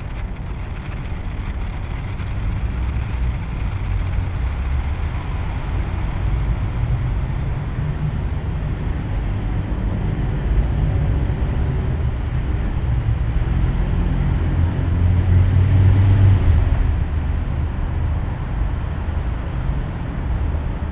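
Steady low rumble of city street traffic, swelling louder about fifteen seconds in and easing off again.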